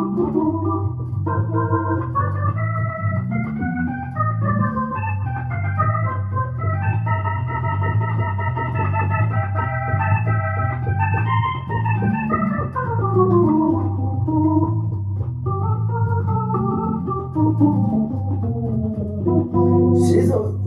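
Electric stage keyboard played with an organ sound in an instrumental break: a steady, evenly repeating bass line in the low register under sustained chords that climb up and run back down.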